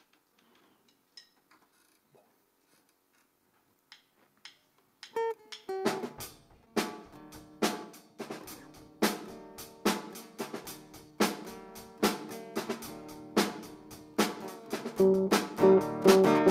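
Near silence with a few faint clicks. About five seconds in, a small worship band starts a song intro: acoustic and electric guitars over a drum kit keeping a steady beat.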